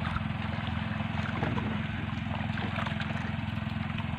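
Engine running steadily on a wooden outrigger fishing boat, an even low throb that holds without change.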